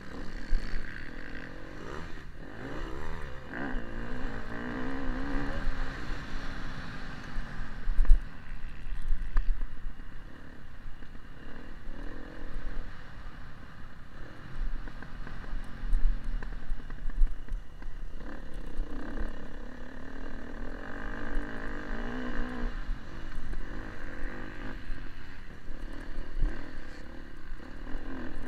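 Motocross dirt bike engine racing, heard from on board: the revs rise and fall again and again with throttle and gear changes. Low rumble and knocks from the rough track run under it, with a sharp knock about eight seconds in.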